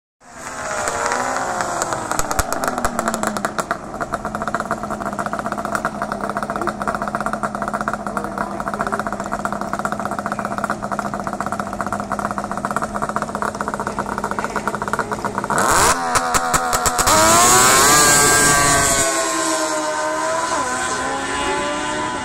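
Drag-racing snowmobile and motorcycle engines running at the start line with a steady, rapid engine note. About 16 seconds in they launch: the sound surges and the pitch climbs as they accelerate away, then fades as they go down the strip.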